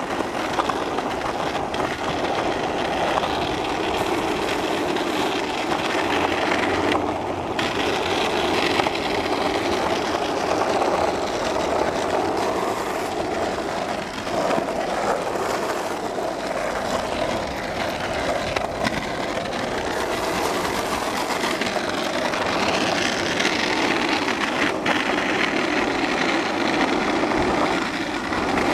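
Skateboard wheels rolling over rough street asphalt: a steady rolling noise with a few faint clicks.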